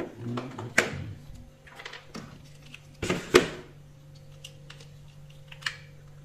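Hard plastic toy train parts clicking and clattering as they are handled and fitted together, a few separate clicks with the loudest clack about three seconds in. A faint steady hum runs underneath.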